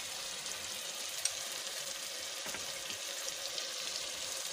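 Sliced onions and ginger-garlic paste frying in hot oil in a pressure-cooker pot: a steady sizzle with a few small pops. The onions have just turned light pink and the paste has just gone in.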